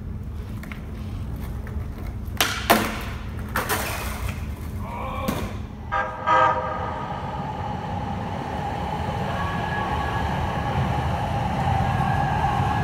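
Light-rail train sounding its horn about six seconds in, then running by with a steady whine. Underneath is the rumble of skateboard wheels rolling on pavement, with a few sharp clacks in the first few seconds.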